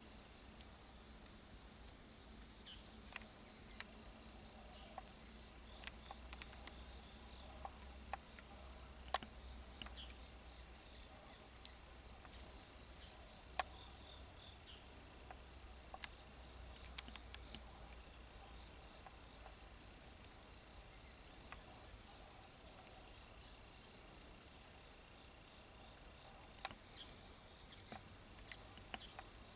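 Faint steady chorus of autumn crickets trilling, with a scatter of small sharp clicks.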